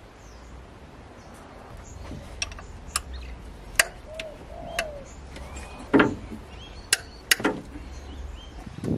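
A string of sharp metallic clinks and knocks from hand tools on engine parts during work in the engine bay, with birds calling now and then in the background.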